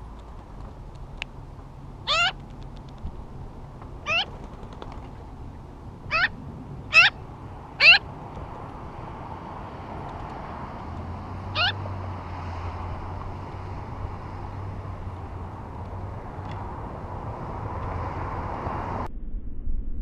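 Magpie giving six short calls with a wavering pitch. Five come about one to two seconds apart and the sixth follows a few seconds later; the fourth and fifth are the loudest. They sound over a steady outdoor hiss that cuts off suddenly near the end.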